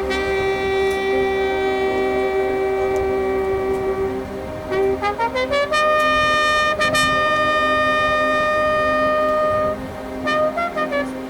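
Marching band winds and brass playing a held chord, then a quick rising run of short notes about halfway through that leads into a louder, long-held chord, with more short notes near the end.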